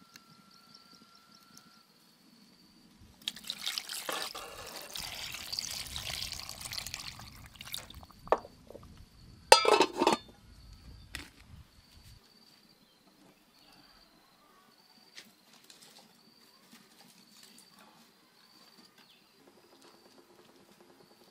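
Water poured into an aluminium cooking pot for a few seconds, then the pot's metal lid set down with two loud clattering knocks. Insects chirp faintly and steadily in the background.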